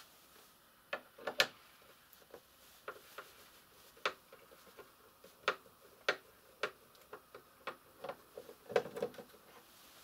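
Irregular light clicks and ticks of a screwdriver working the screws out of a plastic computer case, about fifteen in all, with a quick cluster near the end.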